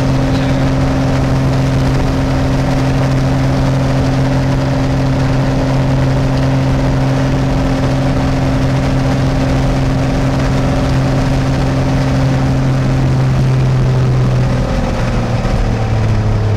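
Piper Cherokee Six's six-cylinder piston engine and propeller running at a steady elevated speed during a ground run-up, heard from inside the cockpit. Near the end the engine speed drops as it is pulled back toward idle.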